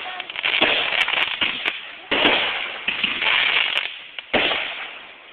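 Aerial fireworks bursting, each sharp bang trailing off into a dense run of crackling pops that slowly dies away. Fresh bursts come about two seconds in and again just past four seconds.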